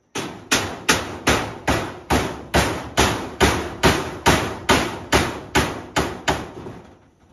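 Hammer driving a roofing nail through a corrugated metal roofing sheet into the wooden roof frame: a steady run of about sixteen blows, roughly two and a half a second, each ringing briefly. The blows stop a little before the end.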